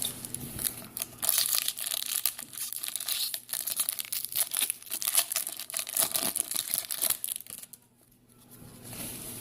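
A 2015 Topps football trading-card pack's wrapper being torn open and crinkled in the hands, a dense run of crackles that stops about three quarters of the way through.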